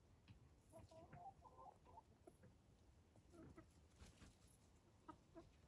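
Faint, soft clucking from chickens: a run of quiet warbling clucks about a second in, then a few short clucks later on.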